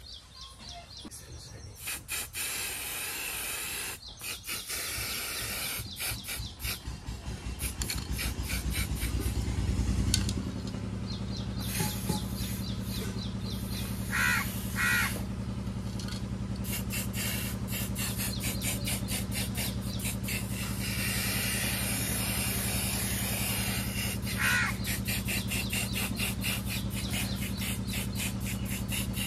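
Aerosol spray-paint can hissing in short bursts as a tractor wheel rim is sprayed red. About a third of the way in an engine starts up and keeps running steadily underneath, and a bird calls a few times.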